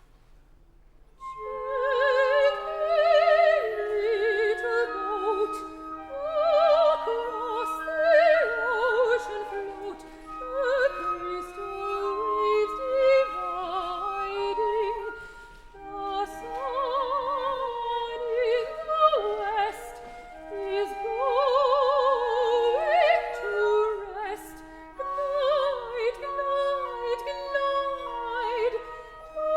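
Soprano singing a slow operatic lullaby with wide vibrato, coming in about a second in, in long rising and falling phrases.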